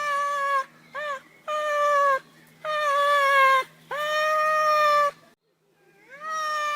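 Cat meowing over and over, about six drawn-out meows in a row with short pauses between them, one of them brief, about a second in.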